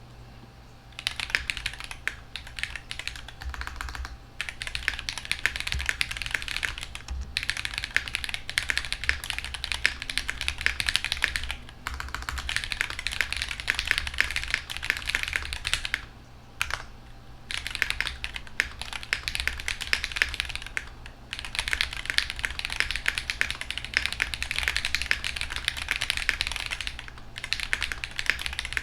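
Typing on a QK65 mechanical keyboard with Huano Strawberry Jelly V3 switches and GMK Rainy Day keycaps, damped with plate foam and a silicone dampener: a clacky sound. The keystrokes come in continuous runs broken by a few short pauses.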